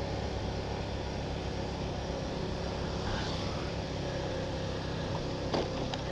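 Motorcycle engine running steadily while riding, with wind and road noise; a short click a little before the end.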